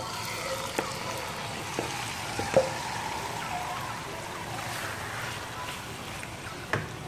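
Marinated chicken sizzling as it is tipped into hot ghee in a non-stick pan and stirred with a wooden spoon. A few sharp knocks of the bowl and spoon against the pan, the loudest about two and a half seconds in.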